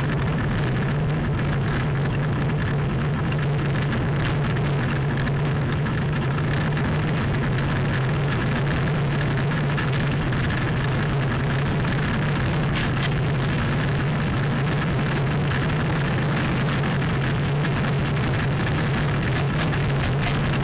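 Soapbox racer rolling downhill, heard through an onboard camera mounted beside its front wheel and coilover suspension: a steady low hum from the wheels and chassis with constant fine rattling and crackle, and no engine.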